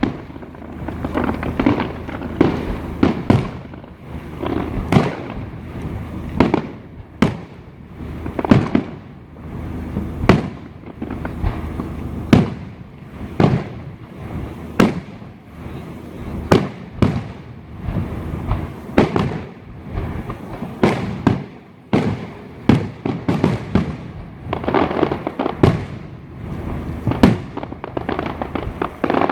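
New Year's fireworks going off continuously: a dense run of sharp bangs, several every couple of seconds, over a steady crackling rumble of many distant bursts.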